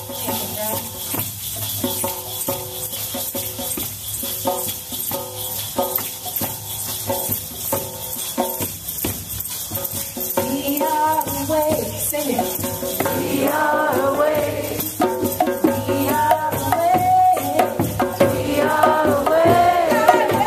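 A roomful of hand shakers and rattles shaken together in a fast, continuous rhythm. From about halfway through, voices come in over the shaking, calling and singing out in long wavering notes that slide up and down.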